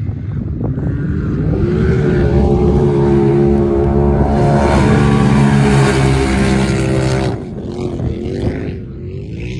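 Two side-by-side UTVs racing past on a dirt course, their engines climbing in pitch and then holding at high revs, loudest mid-pass. The engine sound drops off suddenly about seven seconds in.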